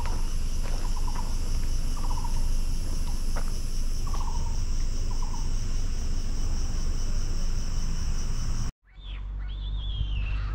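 Steady high-pitched insect chorus, with a short rattling call every second or two. About eight and a half seconds in it cuts out abruptly and gives way to whistled bird calls over a low rumble.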